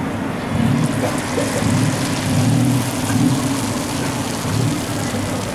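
Green batter frying in a pan of hot oil: a steady sizzle and crackle, over a low, steady rumble.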